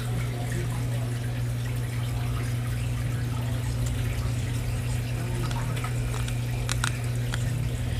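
Steady low hum of running reef aquarium equipment with water trickling, and a few light clicks about two-thirds of the way through.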